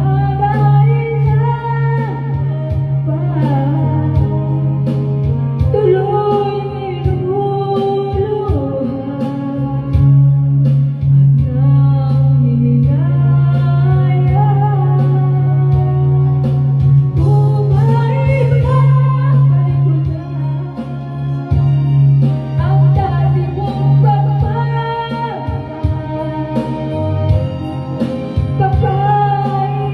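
A woman singing a slow ballad into a handheld microphone over a karaoke backing track.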